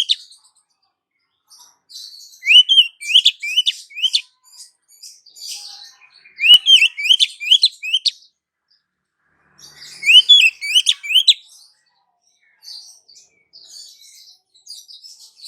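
Female Oriental magpie-robin calling to a male: three bouts of quick, rising chirps, each a second or two long, with fainter scattered notes near the end.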